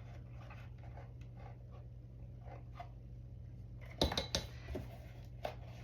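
Light scraping, then a few sharp clicks and taps about four seconds in, as a measuring spoon is filled and levelled with baking soda. A steady low hum underneath.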